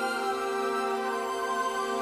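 Slow, sad instrumental music with long held notes.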